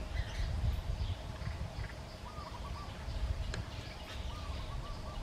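Faint bird calls, including two short wavering whistles about two and four seconds in, over a steady low rumble and outdoor background.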